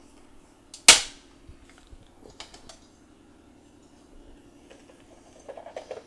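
Hand pop-rivet tool setting a blind rivet into a metal bracket: one sharp, loud snap about a second in as the rivet's mandrel breaks off, followed by a few faint clicks and knocks.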